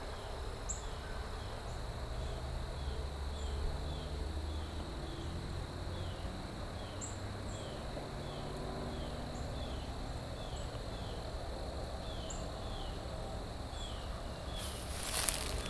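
Faint insect chirping, short falling chirps repeating about twice a second, over a low rumble. A brief rustling comes near the end.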